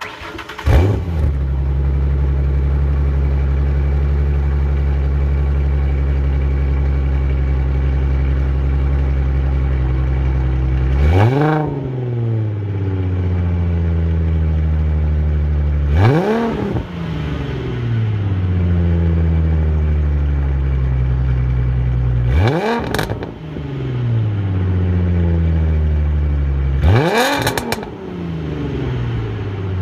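2009 Mustang's 4.0-litre V6 breathing through a Pypes true dual exhaust with shorty headers: it starts up and settles into a steady idle, then is revved four times, each rev a quick rise and fall in pitch back to idle.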